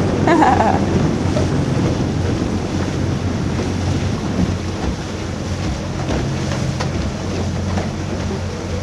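Motorboat under way: the engine's steady low hum under wind buffeting the microphone and the rush of water.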